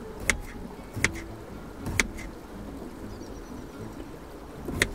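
Kitchen knife cutting potato on a wooden chopping board: a few sharp taps of the blade meeting the board, at irregular intervals, over a low steady rumble.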